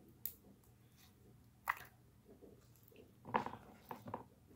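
Slime squeezed and kneaded by hand, making a few short squelches.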